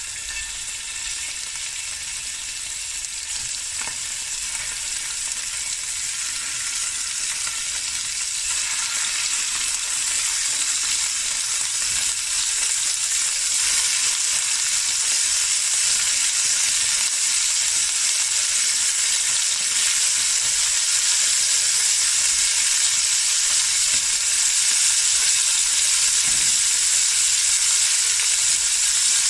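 Seasoned beef cubes sizzling in hot oil in a pot as they are added a few at a time to brown. The sizzle grows steadily louder as more meat goes in.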